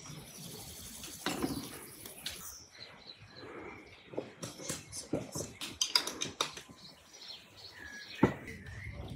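Birds chirping in the background, with a run of sharp clicks and light knocks midway and one loud knock near the end.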